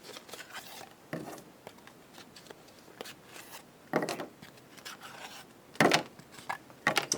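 Cut-out cardboard recipe cards being handled and shuffled: scattered soft rubs and light knocks, a few sharper ones about four, six and seven seconds in.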